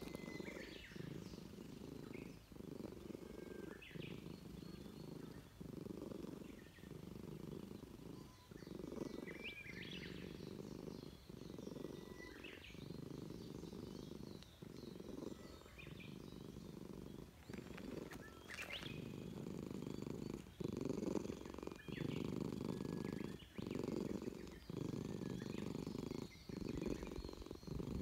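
A grey Russian Blue-type cat purring steadily close to the microphone, the rumble broken by a brief pause about once a second.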